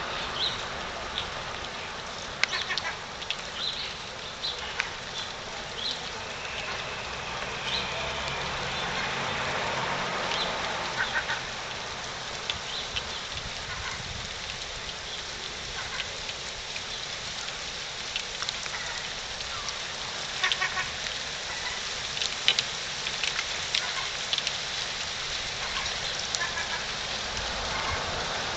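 Hail falling: a steady patter with many sharp ticks of hailstones striking hard surfaces, coming in heavier clusters now and then.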